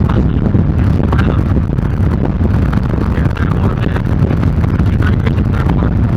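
Steady low rumble of a car driving at highway speed, heard from inside the cabin, with wind buffeting the microphone.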